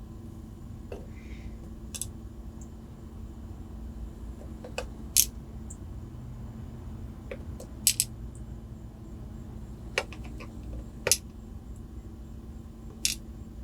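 Small sharp metal clicks and ticks, about seven spread unevenly, as the pins of a gutted ACE A527 padlock are handled and taken out of the plug.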